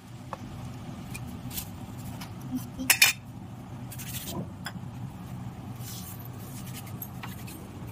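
Scattered clinks and knocks of jackfruit pieces and utensils against a stainless steel plate, with a louder clatter about three seconds in, over a steady low hum.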